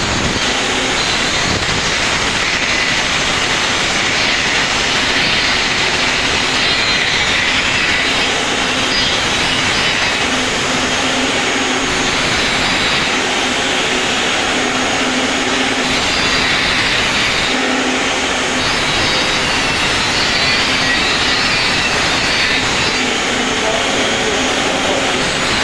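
Electric arc welding running steadily, a continuous dense hiss with a low steady hum underneath.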